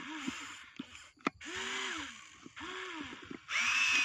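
Huina RC excavator's small electric motors whirring in short bursts as the boom and bucket move, each burst rising and then falling in pitch. There is a sharp click a little over a second in, and the whir is loudest near the end.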